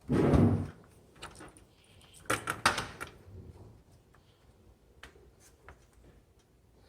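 Hands working on computer parts inside a PC case: a loud clunk with a rustle right at the start, then a quick run of sharp clicks and knocks about two and a half seconds in, and a few faint ticks after.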